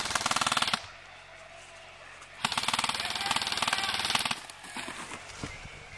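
Airsoft rifle firing on full auto: two bursts of rapid clicking shots, a short one at the start and a longer one of about two seconds a couple of seconds later.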